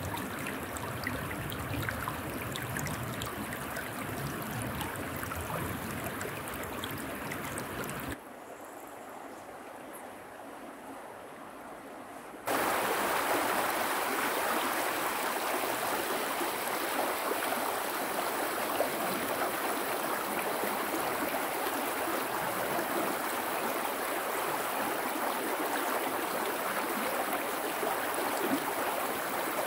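River water rushing steadily. It drops abruptly quieter about eight seconds in and comes back louder about four seconds later.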